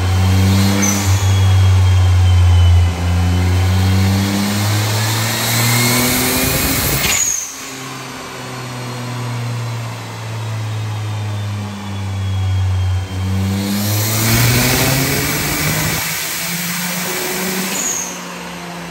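Turbocharged Perodua Viva 1.0-litre three-cylinder engine revving under full load on a chassis dyno, climbing steadily in pitch. It lets off about seven seconds in with a short rush of noise, then pulls up again and drops back near fifteen seconds.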